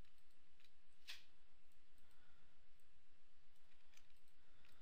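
A few scattered clicks from a computer mouse and keyboard being worked, the loudest about a second in, over a faint steady hiss.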